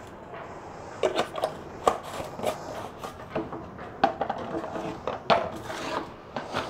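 A white plastic jar being handled and set back onto a wooden shelf among other containers: a series of light, irregular plastic knocks and clatters.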